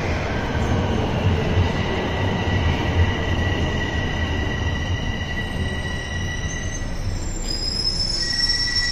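A Toronto Rocket subway train moving through the station: a heavy low rumble under steady high-pitched wheel squeal. A second, higher squeal joins about seven seconds in.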